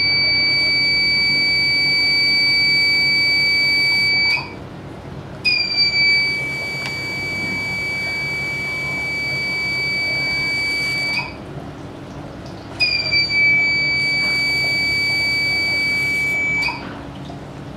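Electrosurgical unit's activation tone: a steady, loud, high beep sounding in three long stretches of about four to six seconds, each opening with a slight drop in pitch. The tone means cutting current is flowing to the wire electrode as it burns through the skin tumour.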